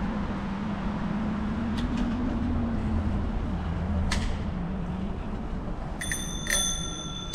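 Steady low rumble and drone of riding and traffic noise, with a few sharp clicks along the way; near the end a bicycle bell is struck twice and rings on in several clear high tones.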